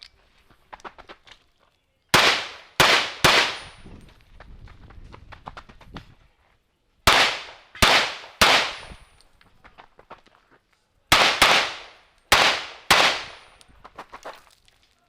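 Pistol fire at a practical-shooting match: about ten sharp shots in three quick strings, each shot ringing off briefly, with quieter knocks and shuffling between strings as the shooter moves between positions.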